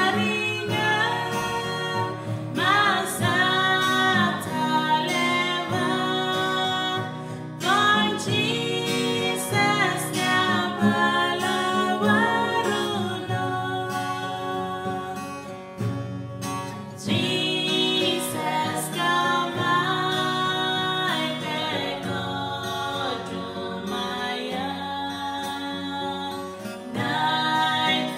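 Two women singing together, accompanied by a strummed acoustic guitar.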